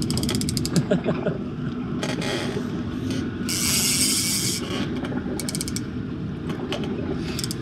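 Fishing reel drag clicking in quick runs as a hooked white sturgeon takes line, with one longer unbroken buzz of drag about three and a half seconds in.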